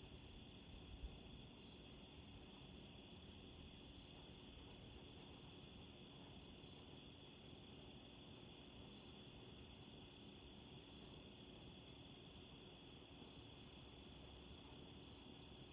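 Faint night insect chorus: crickets trilling steadily, with short higher chirps repeating about once a second.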